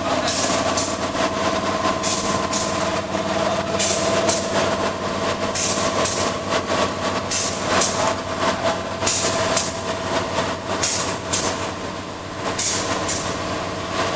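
Zip-lock plastic bag making machine running: a steady machine hum overlaid with short, high hissing bursts that recur about one or two times a second, often in pairs.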